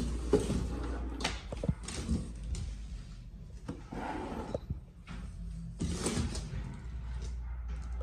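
Cardboard packaging being handled as a heavy pressure washer is lifted out of its box: irregular scrapes, rustles and a few knocks, with a steady low hum underneath.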